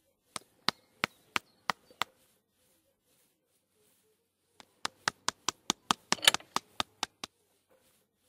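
Sharp percussive clicks or taps: six evenly spaced at about three a second, then after a pause of about two and a half seconds a faster run of a dozen or so, loudest in a quick bunch near the end.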